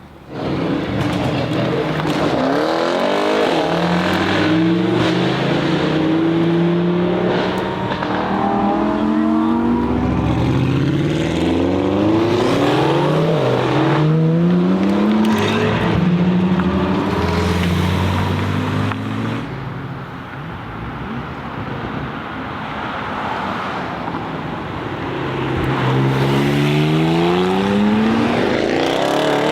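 Tuned Audi RS Q8's twin-turbo V8 accelerating hard on a loud aftermarket exhaust, its pitch climbing and dropping back at each upshift, with sharp exhaust cracks in between. It eases off about two-thirds of the way through and then pulls hard again near the end.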